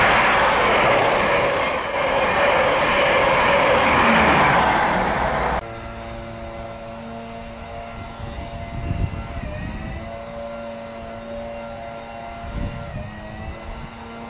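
Loud rush of wheel and air noise from a CrossCountry InterCity 125 high-speed train passing through a station at speed. It cuts off suddenly about five and a half seconds in, giving way to a quieter, steady, multi-toned diesel drone from a train of tank wagons in the distance, with a couple of brief low rumbles.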